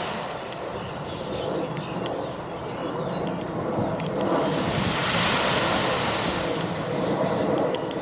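Ocean surf: waves breaking and washing in as a continuous rush that swells louder about halfway through, with a few faint clicks.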